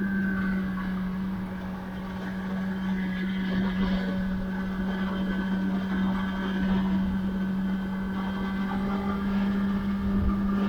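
2021 Kawasaki ZX-10R's inline-four engine holding one steady pitch while the bike is ridden at a constant speed, over a rush of wind and road noise.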